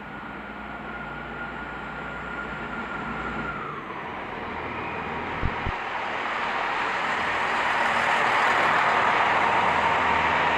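Class 165 Networker diesel multiple unit approaching, its running noise growing steadily louder, with a steady whine that drops in pitch about a third of the way in and two brief low knocks midway.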